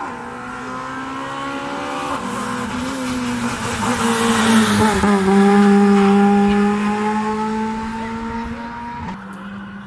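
Race car engine at full throttle, approaching up the road, shifting up through the gears and passing close. It is loudest as it goes by, then pulls away.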